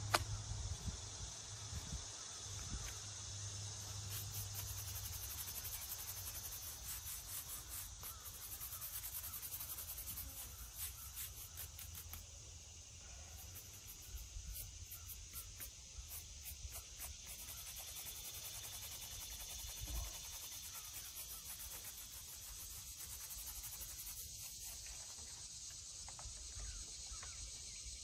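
Faint repeated scraping and rubbing of a hand tool on the face of a flat stone grave marker, over a steady high buzz of insects.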